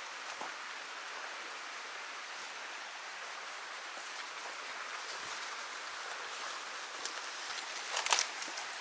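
Steady hiss of a small stream's flowing water. Near the end come a few sharp crackles and rustles of leaves and twigs being pushed through and stepped on.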